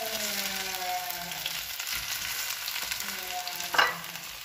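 Breaded chicken breasts sizzling steadily as they shallow-fry in oil in a nonstick pan. A faint whining tone comes and goes twice, and a sharp knock sounds near the end.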